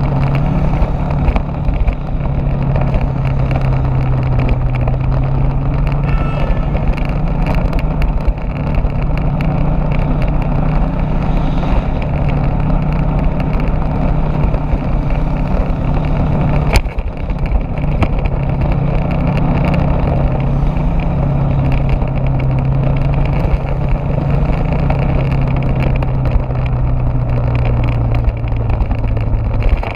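Motorbike engine running at a steady cruising speed, its hum rising and falling a little, with road and wind noise on the microphone. There is one sharp knock a little past halfway.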